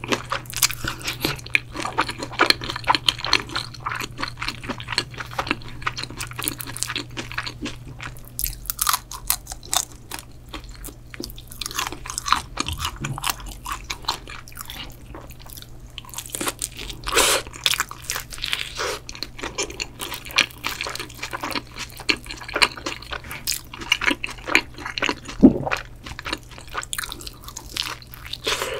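Close-miked eating of shrimp pizza: crisp bites into the crust and continuous wet chewing, full of irregular crunches and crackles. A single louder knock comes near the end.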